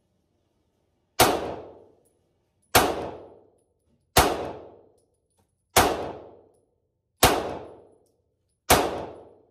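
A sharp bang with a ringing tail, repeated six times at an even pace of about one every one and a half seconds, each dying away before the next.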